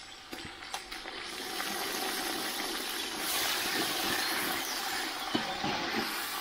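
Chopped tomatoes sizzling in hot oil in a large aluminium pot along with shallots and green chillies as a ladle stirs them. The sizzle builds about a second and a half in. A few light knocks of the ladle against the pot come near the end.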